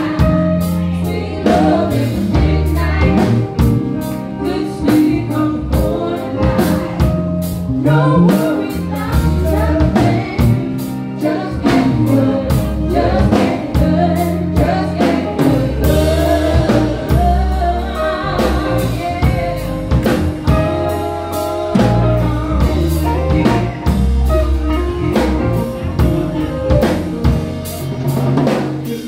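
Live band playing: a woman singing lead over electric guitar, electric bass and a drum kit.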